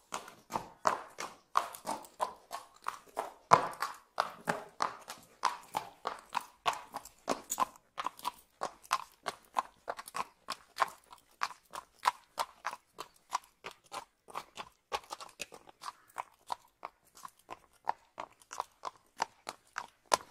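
Horse hooves clip-clopping on a paved street at a steady walk, about three hoof strikes a second, with one louder strike a few seconds in.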